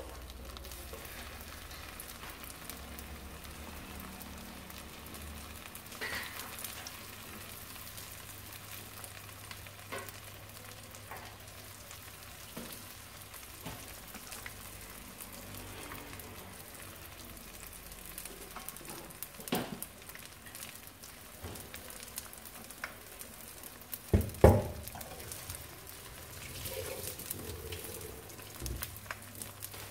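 Spring rolls sizzling as they fry in hot oil in a wok, a steady crackling hiss. A few sharp clicks and knocks come through it, the loudest about three-quarters of the way through.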